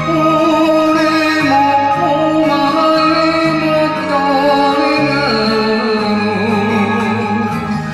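A man singing a Japanese enka ballad into a microphone over a karaoke backing track, his voice wavering with vibrato.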